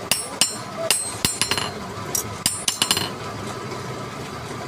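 Hammer tapping on metal: a quick series of about a dozen ringing strikes in the first three seconds, then only a steady background noise.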